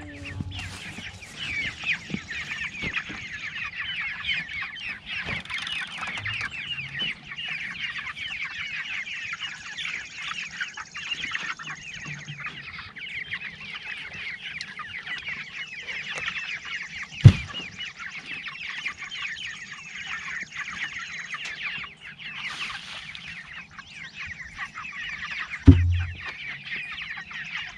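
A flock of four-week-old meat chickens peeping and chattering constantly. Two loud thumps stand out, one a little past the middle and one near the end.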